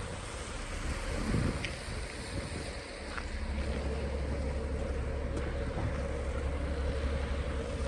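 Wind buffeting the microphone outdoors: a deep rumble that gets stronger about three seconds in, over a steady distant hum.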